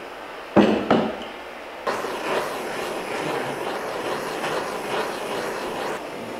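Handheld blowtorch flame running with a steady hiss as it heats a steel plate, after two sharp knocks of metal or wood being bumped, about half a second and a second in.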